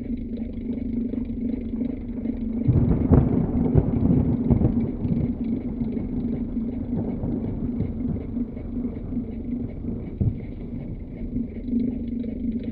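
Electric fan running with a steady motor hum. About three seconds in, a louder low rumble with irregular thumps swells up for a couple of seconds and then eases back under the hum.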